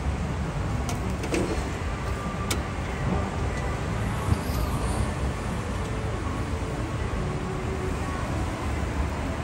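Steady rushing, rumbling noise at a gas-fired grill, with a few sharp clicks of steel tongs on the metal grate in the first three seconds.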